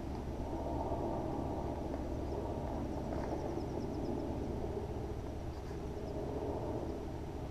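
Steady outdoor background rumble with no distinct impacts, and a faint run of short high chirps a few seconds in.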